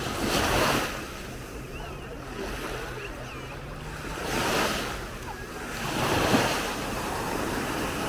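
Small Baltic Sea waves breaking and washing over the sand at the water's edge, rising in three surges of surf: just after the start, about four and a half seconds in, and about six seconds in.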